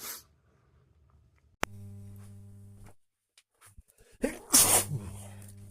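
A man's natural sneeze about four and a half seconds in: a short rising catch of breath, then a loud explosive burst that fades away. A sharp click comes about a second and a half in.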